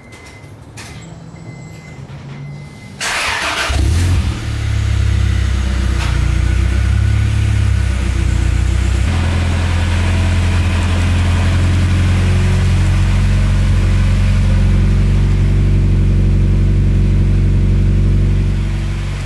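Turbocharged Honda B18 Type R four-cylinder briefly cranked and catching about four seconds in, then settling into a steady, loud idle through its exhaust, the note dropping about nine seconds in. It is a cold start after all the exhaust gaskets were replaced, with no exhaust leak to be heard.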